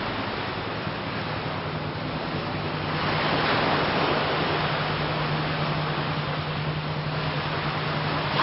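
Outdoor rushing noise, like wind or surf, that swells about three seconds in and again near the end, over a low steady hum.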